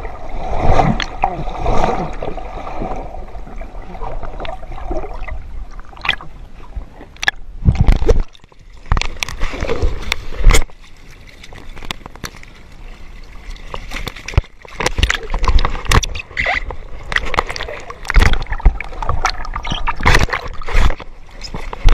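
Water gurgling, sloshing and splashing around an underwater camera as it moves under and near the surface, with many sharp knocks and a few loud thumps, the loudest about eight and ten seconds in.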